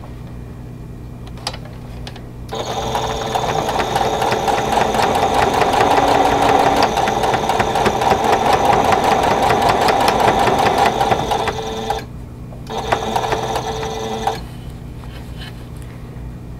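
Singer electric sewing machine stitching a seam, the needle running at a fast, even pace. It starts about two and a half seconds in, stops near the twelve-second mark, then runs again for a short burst of under two seconds.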